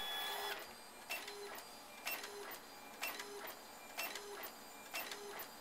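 Epson Stylus 740 inkjet printer printing a photo. The print-head carriage shuttles back and forth about once a second, each pass marked by a sharp click and a short hum.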